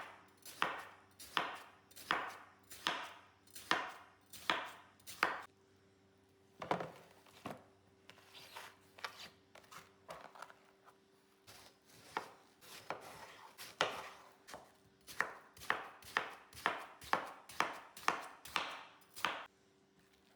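Knife cutting fruit on a chopping board: a long series of sharp strokes, about two a second, with a couple of short pauses and a quicker run near the end.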